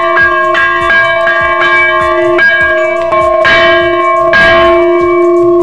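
Hanging temple bell rung by pulling its chain, struck again and again so that its tone rings on without a break, with two louder strikes past the middle.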